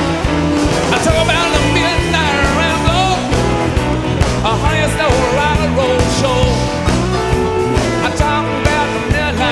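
Live rock band playing a blues-rock number: electric guitars, bass guitar and drums, playing without a break.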